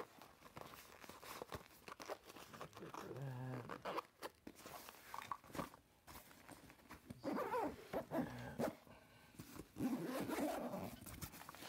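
Zipper on a nylon camera backpack being pulled, with the bag's fabric rustling and its strap buckles clicking as it is handled. A few short pitched, whine-like sounds come in among them; the last, near the end, is the loudest.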